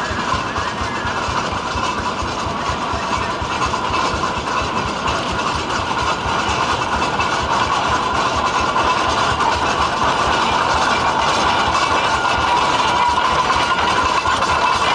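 Early Minneapolis gas tractor engine running under way with a steady, fast clattering beat, growing gradually louder as the machine draws near and passes.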